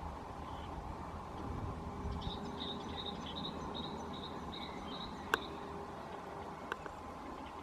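Small birds chirping: quick high-pitched chirps several times a second over a low steady outdoor rumble. A sharp click a little after five seconds in, and a fainter one near the end.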